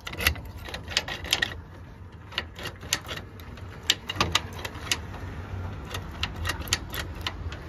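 A key being worked in a newly fitted cluster-box-unit mailbox cam lock: a run of irregular sharp metallic clicks and rattles as the key is inserted and turned to test the lock.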